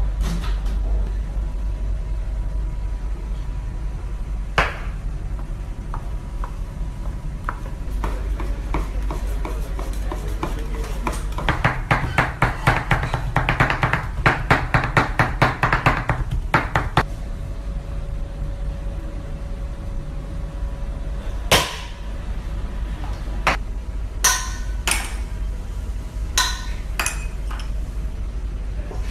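Two knives mincing raw meat on a plastic cutting board: a fast, even run of chopping strikes, about five a second, for several seconds in the middle. A few sharp metallic clinks follow near the end, from a spoon against a steel mixing bowl.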